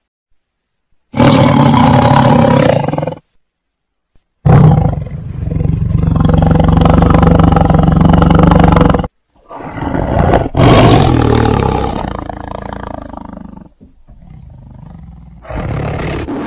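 Tiger roaring: four deep roars with silent gaps between them, a short one about a second in, a long one lasting several seconds, a third that trails off into a quieter low growl, and a last one near the end.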